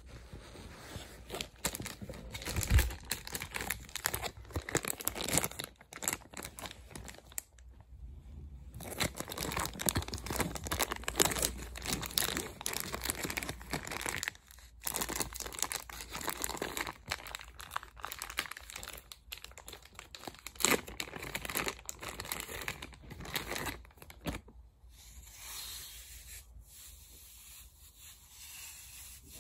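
Packaging being torn open and crinkled by hand: dense rustling and tearing with short pauses, dying away about 25 seconds in.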